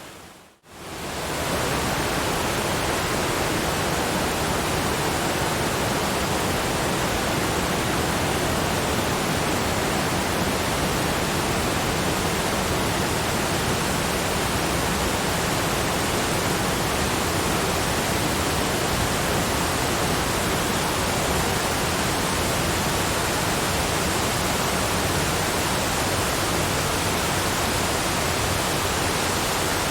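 Waterfall's steady rushing water. It dips briefly almost to silence about half a second in, a fade at a recording loop join, then carries on unchanged.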